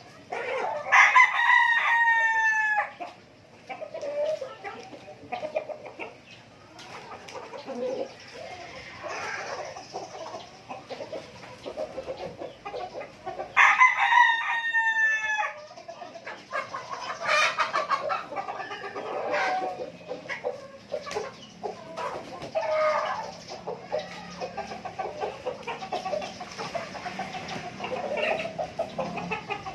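A rooster crows twice, once about a second in and again about fourteen seconds in, each crow lasting about two seconds. Chickens cluck and call between the crows.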